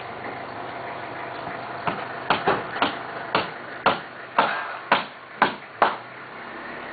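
Hammer blows on a building site: about ten sharp strikes, roughly two a second, starting about two seconds in, each with a short ring.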